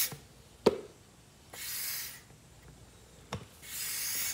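Plastic suction tube of an oil vacuum pump rubbing and sliding against the oil fill neck of a Honda GCV160 lawn mower engine: two short hissing rubs, with a couple of sharp taps.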